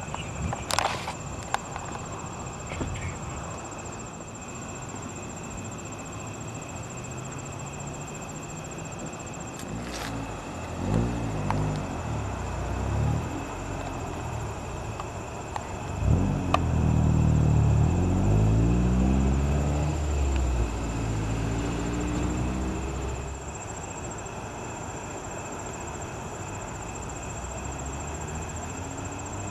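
Low rumbles outdoors: a shorter one about ten seconds in, then a louder one about sixteen seconds in that lasts some seven seconds, with a sweeping rise and fall in pitch. A few sharp clicks come near the start.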